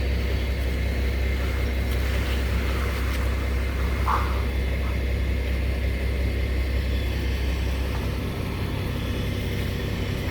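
Steady low rumble of an engine running at a constant speed, its deepest drone dropping away about eight seconds in. A brief higher sound cuts in about four seconds in.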